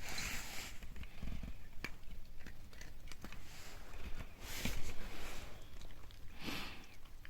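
Toy poodle eating: scattered small chewing clicks with three short breathy bursts, at the start, past the middle and near the end.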